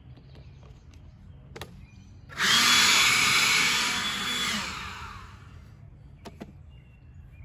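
A small motor switches on suddenly about two seconds in, runs steadily for about two seconds, then winds down and fades.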